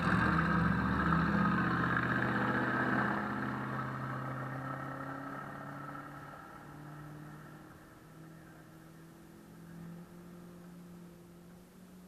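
An off-road vehicle's engine passes close by, loud at first, then fading as the vehicle pulls away up the dirt road. Its note shifts in pitch several times as it goes.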